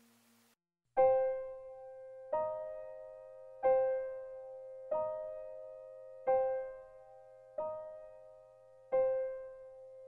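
Soft piano background music: single notes struck about every second and a third, each ringing and fading before the next, starting about a second in after a brief silence.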